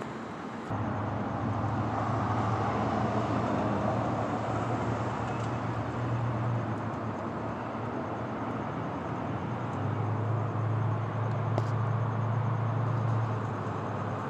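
Street traffic: vehicles driving past, a steady rush with a low engine hum that swells for a few seconds, eases off, then swells again.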